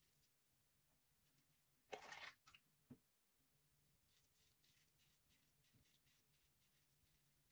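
Faint, short scraping strokes of a Rockwell 6C safety razor's blade cutting through lathered stubble of about a week's growth. A louder, longer scrape comes about two seconds in, followed by two light clicks.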